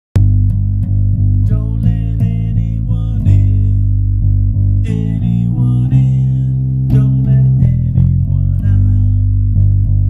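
Electric bass, a Music Man StingRay-style four-string, played fingerstyle: a line of low sustained notes changing in steps, with a higher melodic part over it at times.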